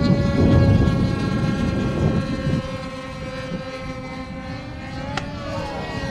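Engines of two radio-controlled model airplanes buzzing at steady pitches in flight. The higher tone dips slightly and the lower one rises a little about five seconds in. A low rushing noise is loudest in the first second, and there is a single sharp click near the end.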